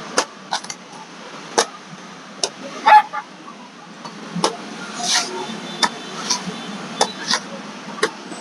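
Heavy cleaver chopping and shaving the husk of a green king coconut: about ten sharp chops at uneven intervals, the loudest a double chop about three seconds in, with a few scraping strokes between. Steady street traffic hums underneath.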